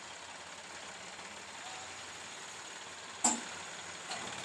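Faint steady background noise with no clear engine tone, broken by one sharp knock a little after three seconds in and a fainter knock near the end.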